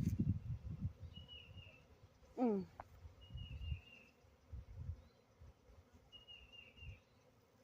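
A bird calls with a short, high warbled note three times, about two seconds apart, over a low uneven rumble. About two and a half seconds in there is a single louder whine that falls steeply in pitch.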